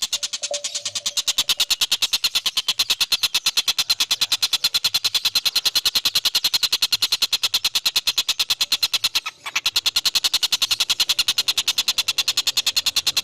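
A bird's fast, even trill, about ten high pulses a second, held steadily with one short break about nine seconds in.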